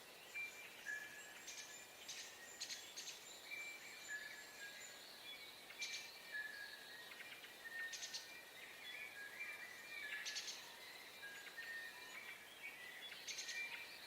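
Morning chorus of several songbirds: short clear whistled notes at different pitches overlapping, with a burst of quick chirps every couple of seconds.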